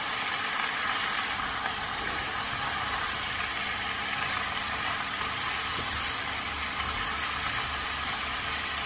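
Cabbage, peas and tomatoes sizzling in a hot nonstick wok as they are stirred with a spatula, a steady frying hiss with a low hum underneath.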